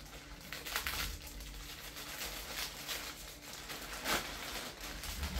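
Plastic wrapping crinkling and rustling in irregular bursts as it is handled at the roots of a bare-root fruit tree, with a louder rustle about four seconds in.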